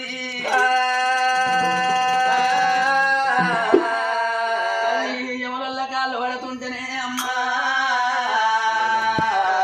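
Live oggu katha folk music: a melody of long held notes, with singing, and a few sharp drum strokes.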